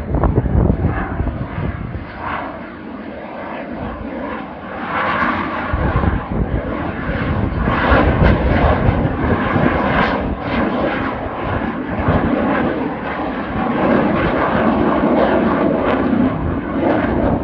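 Loud, crackling jet noise from a Eurofighter Typhoon's twin Eurojet EJ200 turbofans in flight, dipping a little early on and growing louder from about five seconds in.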